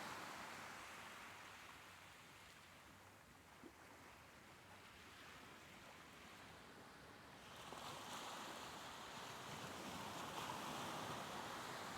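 Soft ocean waves. One wash fades away over the first couple of seconds, then a quieter lull, and the next wave swells in about eight seconds in.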